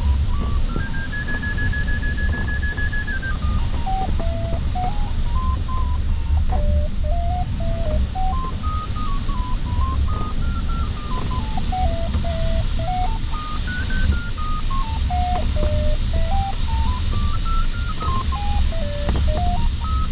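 Glider variometer's audio tone, stepping up and down in pitch in slow swells as the climb rate changes. It is highest for a couple of seconds early on, then wanders between low and middle pitches. Under it runs the steady rush of airflow around the sailplane cockpit.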